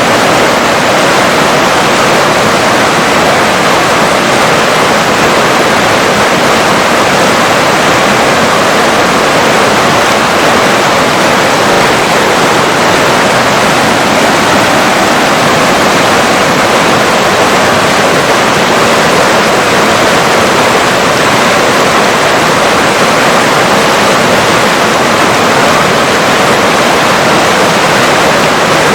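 River water rushing in a loud, steady, unbroken flow.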